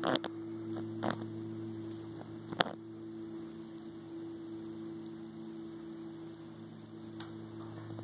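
A steady low electrical hum, with a few brief clicks in the first three seconds.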